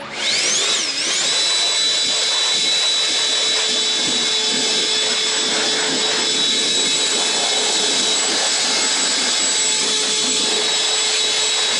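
A high-speed electric fan motor, used to clean dust off a mower, spins up with a rising whine. It runs steadily with a loud rush of air and whine, then begins winding down at the very end.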